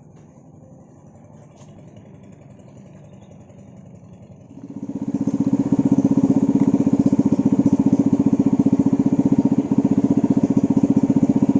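Small boat motor of a wooden canoe running steadily underway, a loud, fast and even pulsing drone. It comes in suddenly about five seconds in, after a few seconds of faint background noise.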